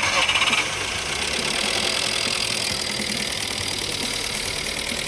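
VW Polo 1.4 petrol engine running just after being started, freshly rebuilt with a new head gasket. It is louder for the first half-second, then settles into a steady idle.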